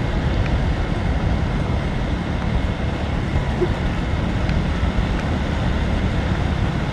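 Steady wind rushing over the microphone of a moving motorcycle, with engine and road noise underneath.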